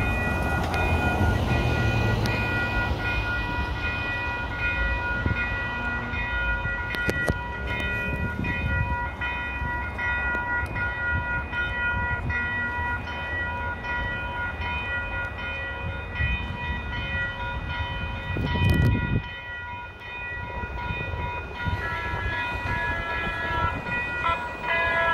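Railroad crossing warning bell ringing steadily while road traffic rumbles past, one vehicle passing louder about three quarters of the way through. Near the end a San Diego trolley light-rail train rolls up to the crossing and adds more ringing tones.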